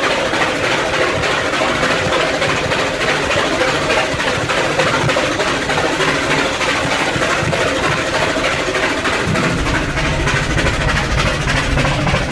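Rack-railway steam locomotive running, its exhaust puffing steadily; a deeper rumble joins about nine and a half seconds in.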